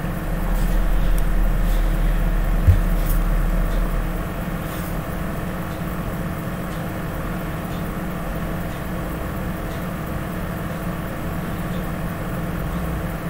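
Steady low rumble, a little louder for the first few seconds, with a few faint clicks and one short dull knock about three seconds in as a nut is worked loose by hand on the alternator's output terminal.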